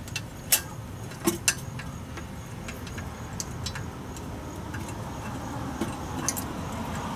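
Scattered light metallic clicks and taps of bolts and hand tools as turbo manifold bolts are put in, at irregular intervals over a steady low rumble.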